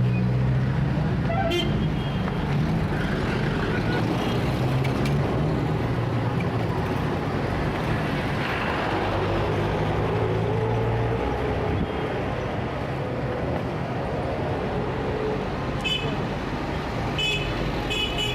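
Heavy city street traffic: a steady wash of engines and tyres with a low engine hum that eases off about two-thirds of the way through, and a few short car-horn toots near the end.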